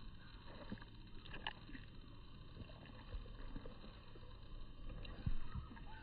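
Faint outdoor background noise with a low rumble and a few soft clicks, and one dull thump a little after five seconds in.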